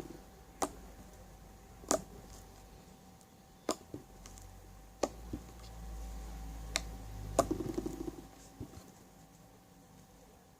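Glossy slime being squeezed and stretched by hand, giving sharp wet clicks and pops, a dozen or so at uneven spacing, with a quick run of them about seven and a half seconds in.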